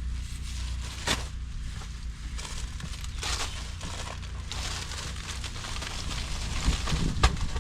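Plastic bags and packaging crinkling and rustling as clothing is handled, with a sharp click about a second in and another near the end.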